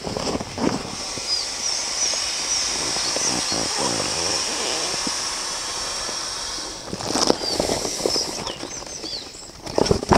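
A nylon roll-top dry bag used as a pump sack, rolled down and squeezed to force air through a hose into a packraft. Air and fabric make a steady rush for about six seconds, then the bag crinkles and rustles as it is worked by hand.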